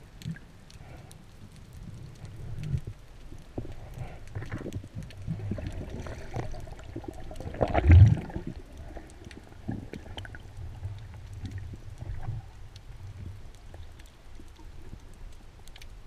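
Underwater sound heard through a diving camera's housing: a low rumble of moving water with scattered faint clicks and crackles. A louder low whoosh swells just before the middle and dies away.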